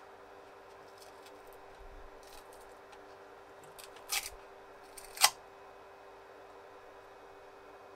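A 3D-printed nylon part being handled on the printer's build plate: a few faint scrapes, then two sharp clicks about a second apart, the second the loudest, over a steady hum.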